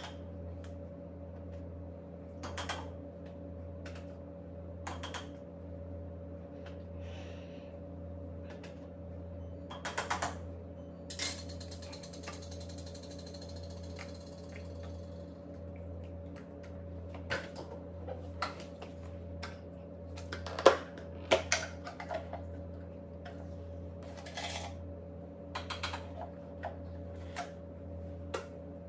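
Scattered clicks and clinks of kitchenware being handled, such as a spoon against a mug and a plastic egg-cooker lid, with the sharpest clicks about twenty-one seconds in, over a steady low electrical hum.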